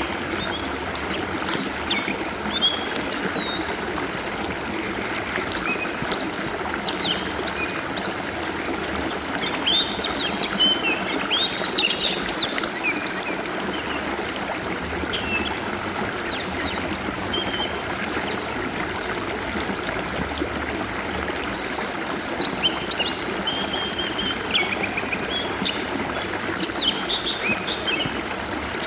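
Stream water flowing steadily, with an oriental magpie-robin singing over it in many short varied whistles and chirps, busiest about a third of the way in and again past two-thirds.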